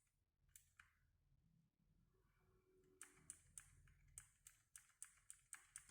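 Faint key presses on a Skyloong GK84S mechanical keyboard: two clicks within the first second, then a run of about a dozen clicks from about halfway, roughly three or four a second.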